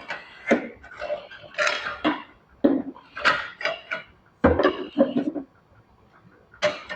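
Metal tools and engine parts clinking and clanking in an irregular series of knocks while working on a small-block Chevy, with a heavier thump about four and a half seconds in.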